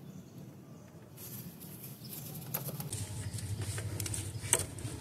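Wrench on the belt tensioner and the drive belt being worked off the engine's pulleys: faint scraping at first, then a quick rattling with a couple of sharp clicks in the last two seconds.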